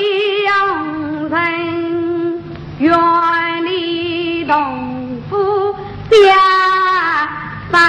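A woman singing a Yue opera aria in long, drawn-out notes that slide between pitches with a slow vibrato. There is a short breath break about two and a half seconds in, and the loudest, highest note comes about six seconds in before sliding back down.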